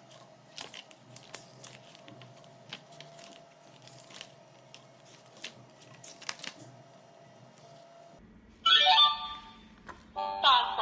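Pages of a children's electronic talking book being handled and turned, with faint scattered paper clicks and rustles. About eight and a half seconds in, and again near the end, the book's small speaker plays a short loud recorded voice clip.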